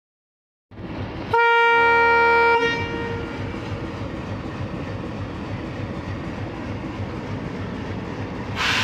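WDM3D diesel-electric locomotive's ALCO 251 engine running as it pulls a passenger train away, with a loud horn blast of about a second near the start, then steady engine chugging that grows louder near the end.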